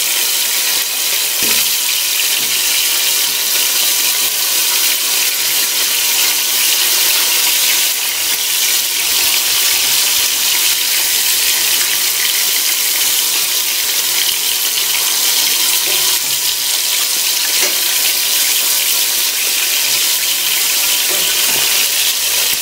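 Flour-dredged chicken pieces flash-frying in hot lard in a stainless steel pot: a loud, steady sizzle.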